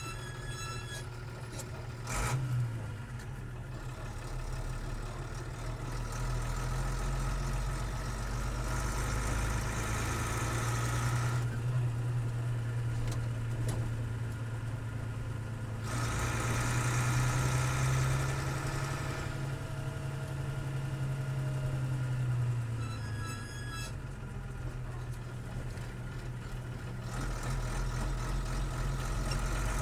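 1984 Bedford diesel truck engine running steadily, heard from inside the cab, its sound swelling and easing in stretches of a few seconds. A single sharp clunk comes about two seconds in.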